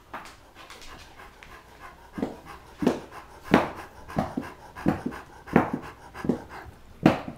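Great Dane panting with his mouth open, lying on his side. The breaths are faint at first, then loud and regular from about two seconds in, roughly one and a half a second.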